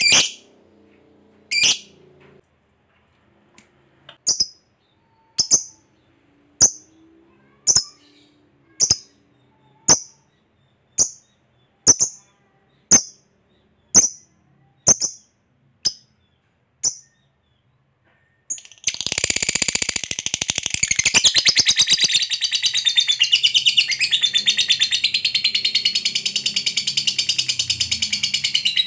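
Lovebird giving single sharp, high chirps about once a second, then after a short pause breaking into a long, rapid chattering trill, the 'ngekek' that keepers prize, which runs on without a break.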